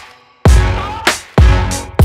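Background music with a heavy, bass-laden beat. It drops almost to silence at the start, then the beat comes back in about half a second in.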